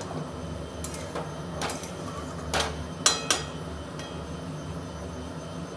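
Metal utensil knocking and scraping against the cooking pan while the chicken is stirred: about six sharp clicks between about one and three and a half seconds in, the loudest near three seconds with a short ring, over a steady low hum.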